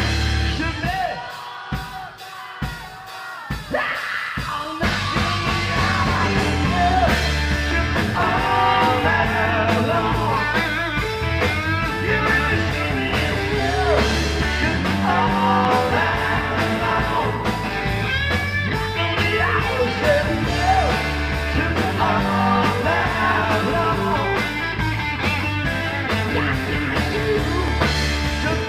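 Live rock band playing: a few separate drum hits, then about five seconds in the full band comes in with drum kit, bass guitar, electric guitar and a singing voice.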